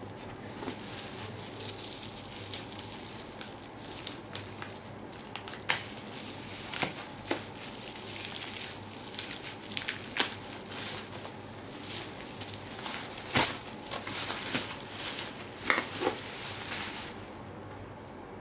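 Plastic bubble wrap being handled and peeled open, crinkling with irregular sharp crackles. The crackles grow louder and denser through the middle and stop just before the end, once the wrapped item is out.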